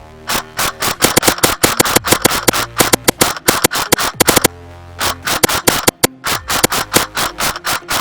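Background music with dense, fast percussive hits over held tones, pausing briefly about halfway through.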